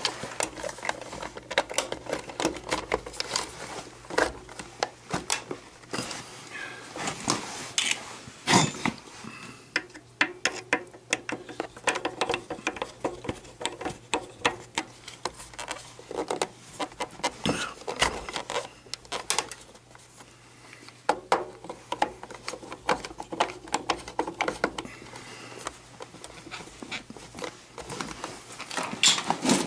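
Irregular clicking, tapping and scraping of hands and a screwdriver working on an oil burner's plastic primary control box.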